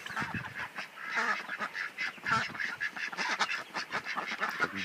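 A flock of young poultry calling: many short, overlapping calls, irregular and continuous.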